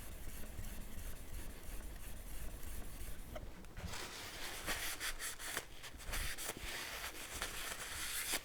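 Steel chisel back being rubbed flat on a wet Japanese water stone: a steady scraping that grows louder and rougher, with distinct strokes, from about four seconds in. It is the back being polished on the fine stone.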